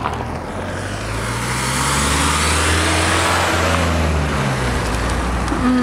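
A car passing by on the road. Its engine hum swells to loudest a couple of seconds in, then drops slightly in pitch and fades as it goes past.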